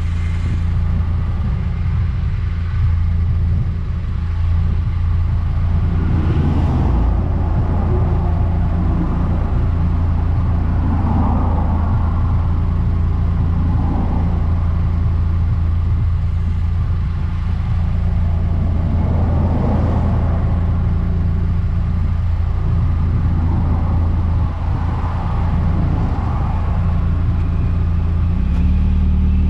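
Eunos Roadster engine running steadily with a deep hum, under a rushing noise that swells every few seconds; the engine note rises near the end as it revs up.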